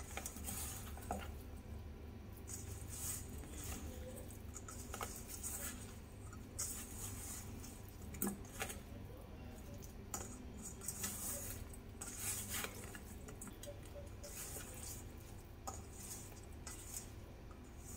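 Hand tossing oil-and-spice-coated potato wedges in a stainless steel bowl: faint, irregular rubbing and shuffling, with a few light clicks against the bowl.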